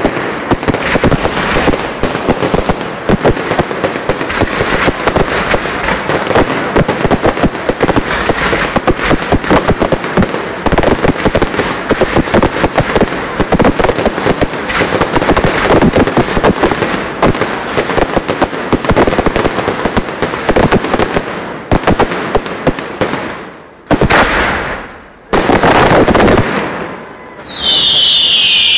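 Fireworks going off at close range: a dense, rapid crackle of many small bangs that keeps up with little pause. Near the end it thins to a few bigger separate blasts, then a shrill, slowly falling whistle begins.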